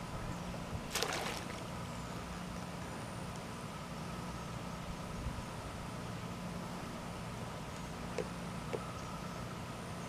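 Steady low engine hum over open water, with a short splash about a second in and two faint ticks near the end.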